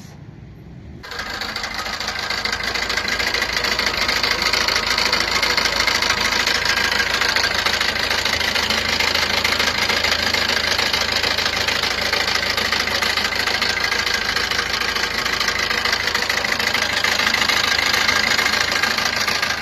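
Maruti Suzuki Ertiga engine running steadily with a loud, dense rattling noise, coming up about a second in. The noise comes from a stretched timing chain whose tensioner has run out far.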